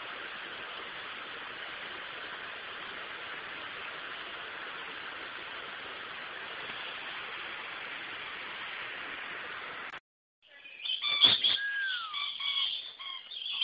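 A steady, even hiss for about ten seconds that cuts off abruptly, then rainbow lorikeets calling close by in loud, shrill chirps and screeches, one a short falling note.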